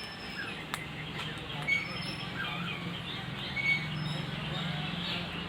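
Indian parrot chirping and giving short whistled calls over and over, over a steady low hum.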